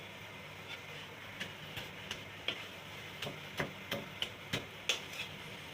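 A cooking utensil knocking against cookware in a string of irregular sharp clicks, sparse at first, then louder and closer together about halfway through.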